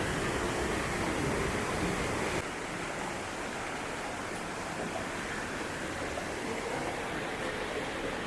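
Steady rushing of river water over small waterfalls and rocks. It becomes a little quieter and duller about two and a half seconds in.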